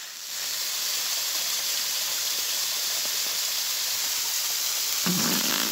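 Waterfall's steady rushing hiss. It rises about half a second in, then holds even.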